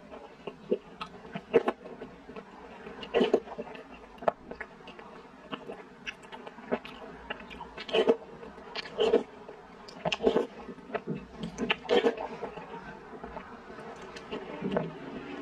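Close-miked mouth sounds of eating a spooned dessert soup with grass jelly and tapioca pearls: wet chewing, sucking and lip smacks in irregular bursts every second or so, with sharp clicks between them.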